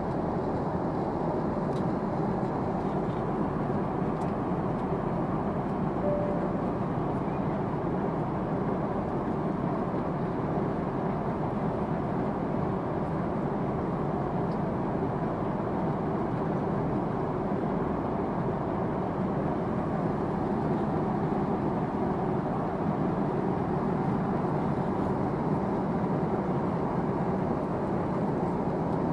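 Steady cabin noise of a Boeing 777-200 at cruise, heard in the rear cabin: an even rush of airflow and engine noise, mostly low and middle in pitch, unchanging throughout.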